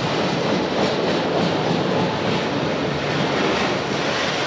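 Enclosed autorack freight cars rolling past, their steel wheels running on the rails with a steady, loud noise.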